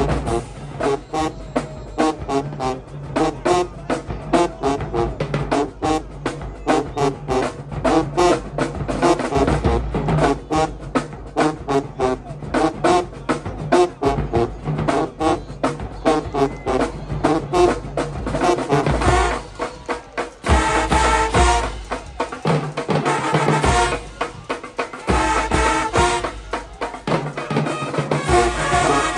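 Marching band playing: brass with rapid, driving drums.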